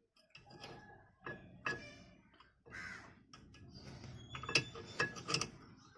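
Sharp metallic clicks and clinks with brief ringing as a new disc brake pad and its steel retaining clip are fitted into a Maruti 800 front brake caliper. The loudest clinks come in a cluster about two-thirds of the way in, after some rougher rasping scrapes.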